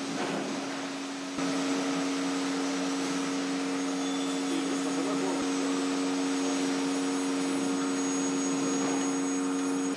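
Automated rotary parts feeder on an assembly line running: a steady electric machine hum with two steady tones. It steps up in level about a second and a half in.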